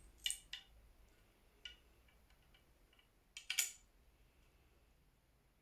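Small metal clicks and taps of a screw being fitted into an Avalon Tyro metal bow-sight housing: two sharp clicks near the start, a single tick, then a louder cluster of clicks about three and a half seconds in.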